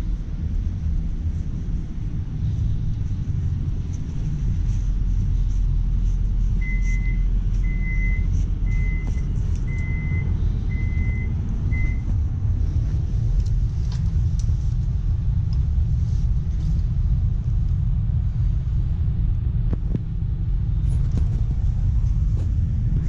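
ES2G Lastochka electric train running, a steady low rumble heard from inside the carriage that grows louder about four seconds in. Six short, evenly spaced electronic beeps sound about seven seconds in.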